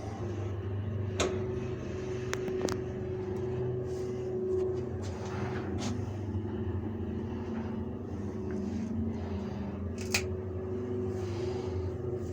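Passenger lift car travelling down, heard from inside the car: a steady machine hum with a held tone, and a few sharp clicks and ticks on the way, the loudest about ten seconds in. The lift dates from the 1970s and was modernized in the 2000s.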